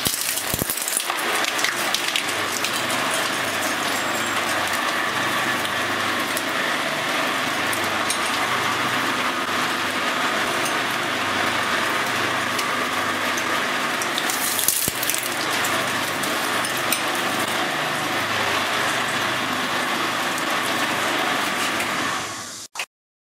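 Twin-shaft shredder running, its rotating cutter discs crunching and tearing plastic dolls and doll hair: a steady grinding noise under a low pulsing hum, with frequent small cracks. It cuts off suddenly near the end.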